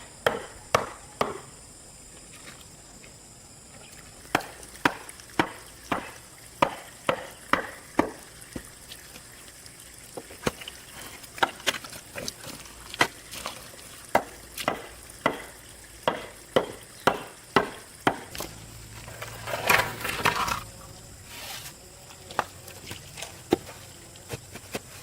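A hand tool repeatedly striking, chopping or hammering, in sharp blows about two a second, with a pause near the start. About twenty seconds in, a louder scraping or rustling noise lasts about a second.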